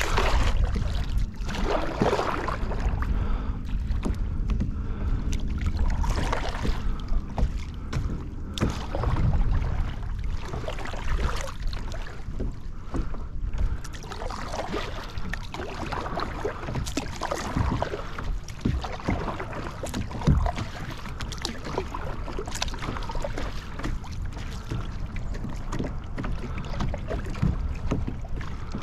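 Water splashing and lapping around a Field & Stream Eagle Talon 12 kayak on the move, in short irregular splashes, over a steady wind rumble on the microphone.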